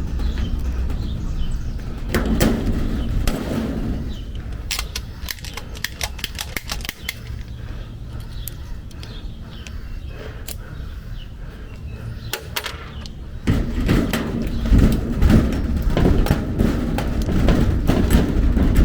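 Hand pop-rivet gun setting rivets through a hasp into a metal shed door: a string of sharp clicks and snaps. Under it runs a low rumble that gets louder about thirteen seconds in.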